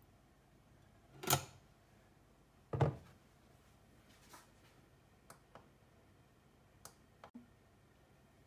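Two knocks about a second and a half apart as a glass mixing bowl of mascarpone cream is handled and set down on a kitchen worktop, followed by a few faint clicks.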